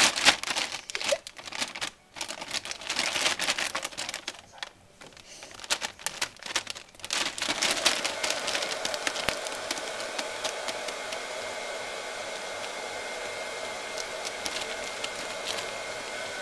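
Thin plastic bags crinkling and rustling in loud irregular bursts as a cat thrashes and pounces in them. From about eight seconds in, a steady whirring noise with a few held tones sets in under continuing small crackles.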